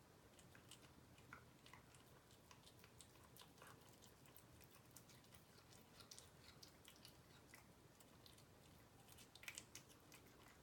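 A cat faintly chewing a piece of raw chicken: soft, irregular wet clicks and smacks, with a brief cluster of louder ones near the end.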